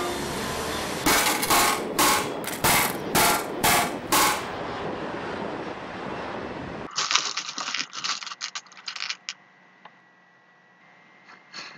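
About seven loud, sharp knocks, roughly two a second, over a steady hiss. After an abrupt change, a quick scatter of lighter clicks follows, thinning to a few faint clicks.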